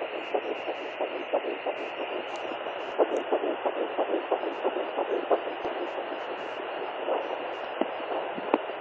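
Fetal heartbeat at nine weeks through a handheld fetal Doppler's speaker: rapid pulses, about three a second, over a steady static hiss, fading a little partway through before coming back.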